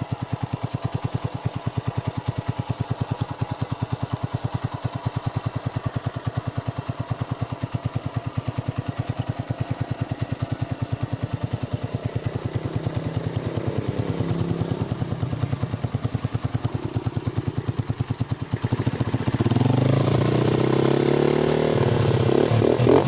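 Honda TMX single-cylinder four-stroke engine idling through a curve-type bullet-pipe muffler with its silencer insert fitted, an even popping exhaust beat. About two-thirds of the way in it is blipped up and back down, and near the end it is revved up and held at a louder, higher note.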